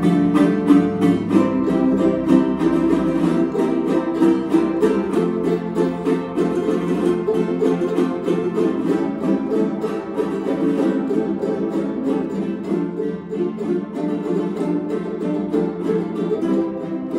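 Several jaranas strummed together in a fast, steady son jarocho rhythm.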